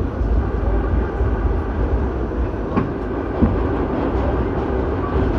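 New York City subway express train running, a steady low rumble with a couple of sharp clicks about three seconds in.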